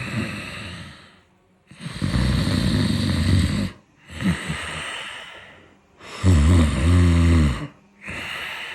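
A person snoring while sleeping on their back: two loud, low snores about 2 and 6 seconds in, with quieter breaths between. The sound is the vibration of a partly blocked airway.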